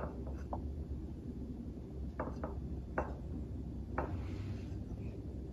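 Light clicks and taps as blackberries are picked out of a plastic berry basket and set down on a ceramic plate of waffles: about seven small knocks spread over a few seconds, over a low steady hum.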